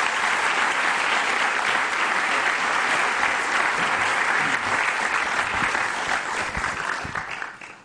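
Audience applauding steadily, the applause dying away near the end.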